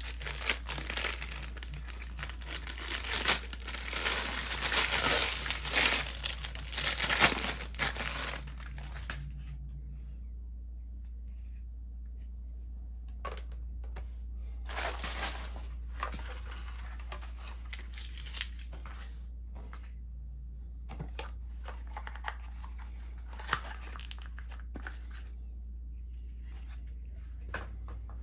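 Packaging being handled and unwrapped: crinkling and tearing that is busy for about the first nine seconds, then gives way to scattered short rustles and clicks.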